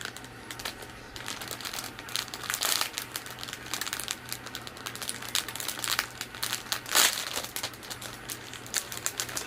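Packaging being handled and unwrapped by hand: irregular crinkling and rustling bursts, the loudest about seven seconds in, over a faint steady low hum.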